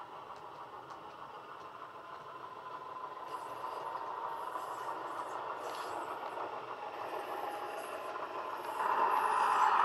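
Model Bachmann Class 117 diesel multiple unit approaching. Its DCC sound decoder plays a diesel railcar engine sound through the model's small speakers, with faint clicking from about three seconds in. The sound grows gradually louder, then steps up sharply about nine seconds in as the unit draws near.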